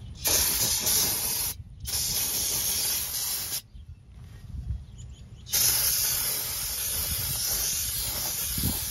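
Aerosol brake cleaner hissing out of its spray can in three bursts, used to clean out a brake drum: two short ones, then a longer one starting about halfway through.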